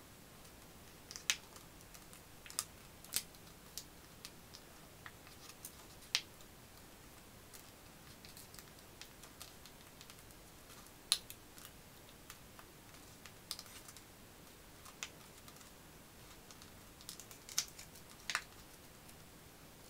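A sheet of paper being folded and creased by hand into a pop-up stair shape: scattered, irregular crisp snaps and crackles as the folds are pressed in, over a faint steady hiss.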